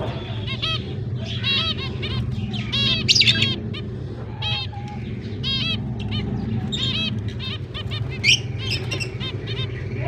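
Zebra finches calling: many short, high chirping calls in quick succession, overlapping at times, with louder calls about three seconds in and near the end. A steady low hum runs underneath.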